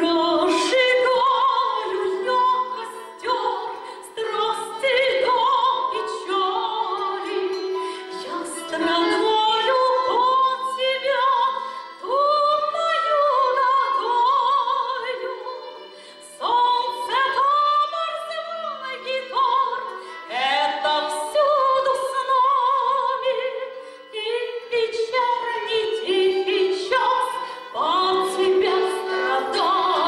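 A woman singing a Russian romance in full voice with a wavering vibrato, accompanied by acoustic guitar and violin; the song comes in phrases with short breaks between them.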